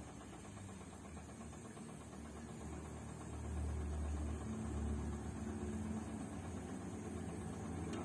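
Zanussi front-loading washing machine in its wash cycle: the drum motor hums low and steady as the drum turns the laundry through the water, getting louder about three seconds in.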